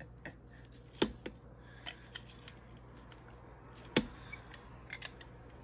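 Handheld hinged lime squeezer being pressed over a lime half, giving a few sharp clicks, the loudest about a second in and about four seconds in, over a low steady hum.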